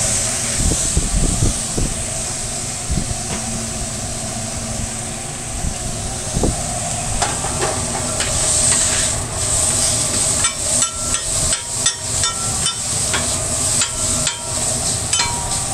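Flank steak sizzling on a flat-top griddle, a steady hiss over a low steady hum. From about seven seconds in, metal spatulas chop and scrape the meat against the griddle in rapid clicks and knocks, some with a brief metallic ring.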